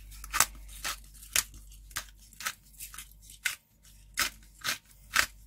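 Metal spoon stirring thick chili-tomato paste in a pan, scraping against the pan in repeated short strokes, about two a second.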